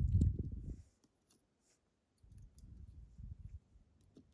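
Handling noise from reassembling a pin-tumbler lock. There are two stretches of low rubbing and bumping, one at the start and one from just past halfway, with small sharp metallic clicks from the lock parts and tools in between.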